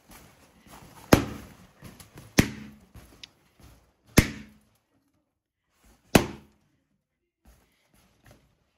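Latex party balloons being pricked and popped one at a time: four sharp bangs, one to two seconds apart, with faint rustling of the balloons between them.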